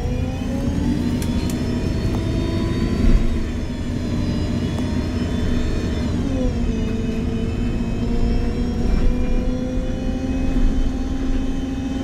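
MAN Lion's City G NG313 CNG articulated bus pulling away, the whine of its Voith automatic gearbox rising in pitch, dropping once about six seconds in at an upshift, then climbing slowly again. There is a knock about three seconds in.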